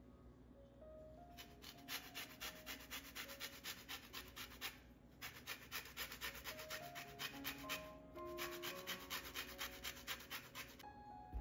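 An orange being zested on a fine stainless rasp grater: quick scraping strokes, about four a second, in three runs with short pauses between them. Soft background music plays underneath.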